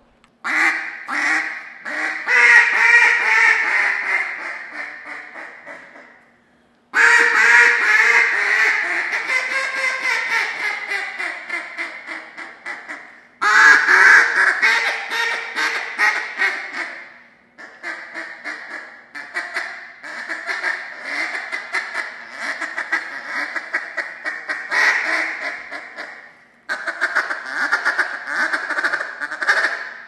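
Single-reed J-frame duck call blown in mallard-style runs of rapid quacks, about five runs, each starting loud and tailing off.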